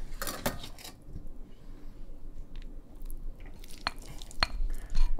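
Soft, squishy handling of meatballs being set onto layered rice in a cooking pot, with a few light clicks of a utensil against the pot, two sharp ones about four seconds in.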